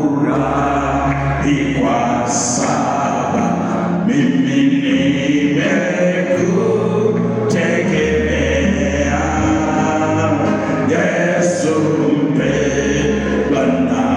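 Gospel choir singing in harmony over a sustained bass line, the bass note changing every two or three seconds.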